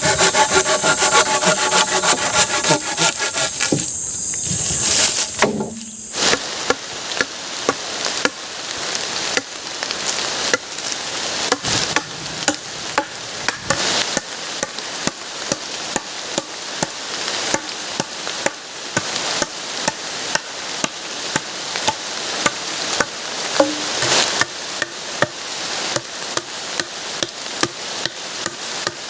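Wood being worked with a hand tool: a few seconds of fast, rhythmic cutting strokes, then after a short pause a long run of regular sharp blows on wood, a little over one a second.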